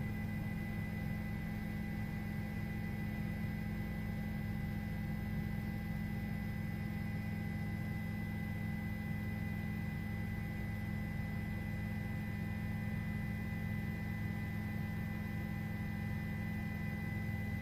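Steady cabin drone of a news helicopter: a constant hum with several fixed tones that does not change.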